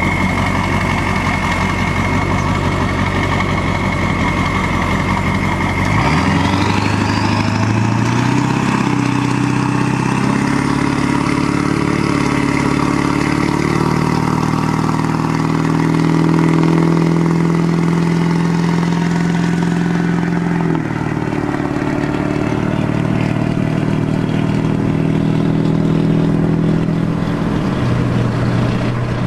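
Ford F-450's 7.3 Power Stroke turbodiesel with a Banks turbo idling with a steady high turbo whistle. About six seconds in it pulls away: the whistle rises in pitch and the engine climbs through the gears, its note dropping suddenly at each shift.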